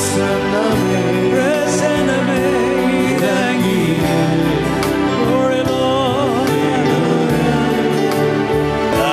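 A man sings a gospel worship song live into a microphone, his voice wavering with vibrato over sustained instrumental backing and a regular beat.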